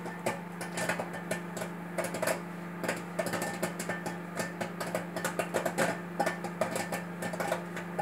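Friac microwave oven running with a steady hum while popcorn in a microwave popcorn bag pops inside: quick, irregular pops, several a second.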